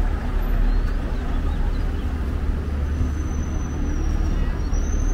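Street traffic noise dominated by the deep, steady rumble of a city bus running close by. A faint high whine comes in about halfway through.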